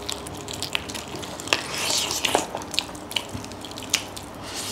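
Close-miked eating sounds of two people eating chicken and rice with their hands: wet chewing and lip smacks with scattered small mouth clicks, and a brief hiss about two seconds in.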